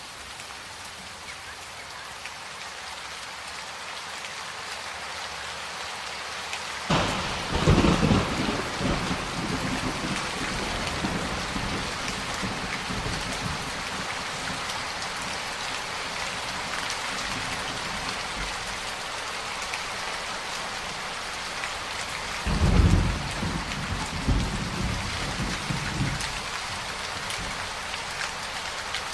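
Steady heavy rain in a thunderstorm, swelling over the first few seconds. Thunder breaks suddenly about seven seconds in and again near the end, each clap rolling on for a few seconds.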